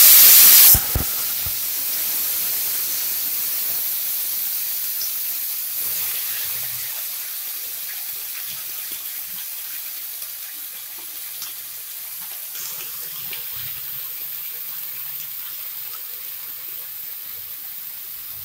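Shredded cabbage and potato going into hot oil in an iron kadai: a loud burst of sizzling that drops away within the first second, then a steady frying hiss that slowly fades.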